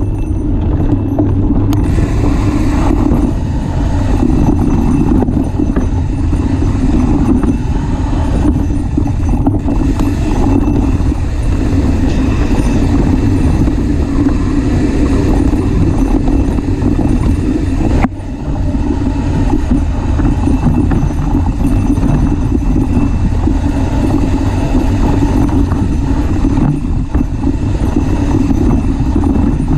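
Mountain bike riding a dry, rocky dirt trail: the knobby rear tyre rolling over dirt and stones, with steady wind rumble on the microphone. A single sharp click a little past halfway.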